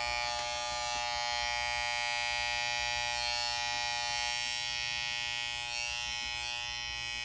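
Corded electric hair clippers with a guard comb attached, buzzing steadily at a constant pitch while they run over the closely shaved side of a head.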